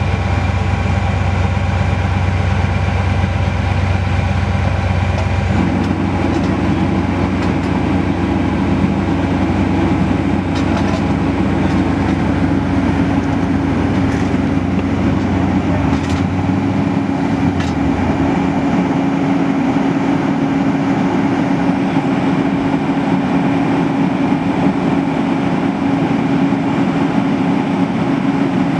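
A large vehicle engine running steadily with a loud drone. Its tone changes about five and a half seconds in, and its deepest part drops away about sixteen to eighteen seconds in.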